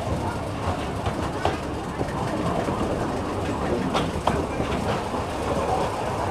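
Deutz OMZ 117 narrow-gauge diesel locomotive running steadily as it hauls skip wagons along the track, heard from the cab. A few sharp clicks from the wheels over the rail joints, two close together about four seconds in.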